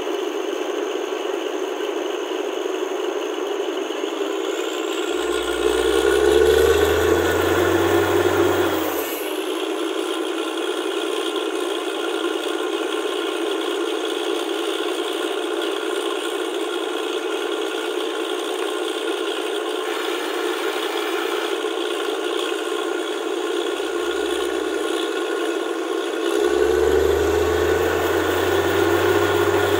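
Borewell drilling rig running with a loud, steady rattling machine noise. About five seconds in, and again near the end, the rig's engine comes up under load with a rising whine and a deeper hum; the first time it drops back after a few seconds.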